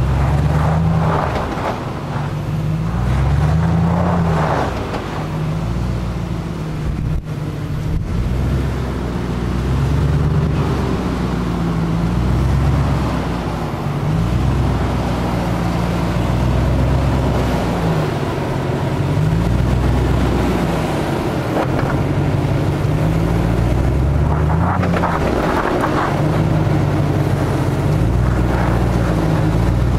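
Jeep Grand Cherokee WJ engine under load while crawling off-road, the revs rising and falling every second or two as the throttle is worked over the ruts.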